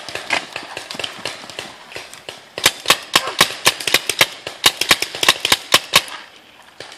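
Paintball markers firing: sharp pops, fainter and scattered at first, then a rapid volley of loud shots, several a second, from about two and a half seconds in until near the end.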